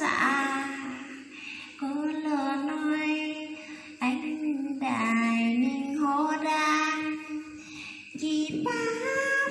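A woman singing a slow folk ballad (vè) into a handheld karaoke microphone, in several phrases of long, slightly wavering held notes with short breaths between them.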